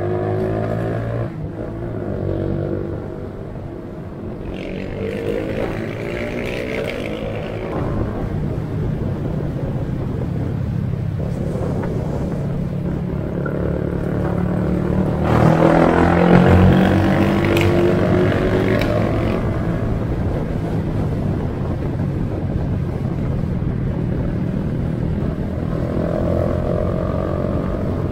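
Honda GTR 150's small single-cylinder engine pulling up through the gears on the road. The pitch climbs and then drops at each clutchless quick-shifter upshift, several times over, and it is loudest about halfway through.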